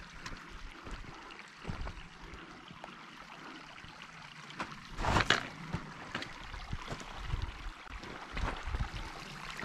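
Small mountain stream running steadily, with a brief louder rush about five seconds in and scattered low thumps.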